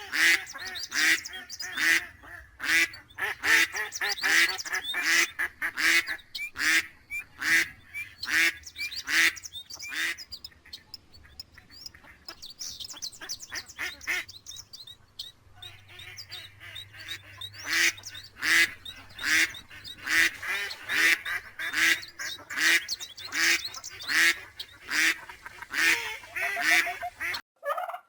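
Several ducks quacking in quick, overlapping calls. The calls thin out for a few seconds about halfway through, then come thick again and stop suddenly near the end.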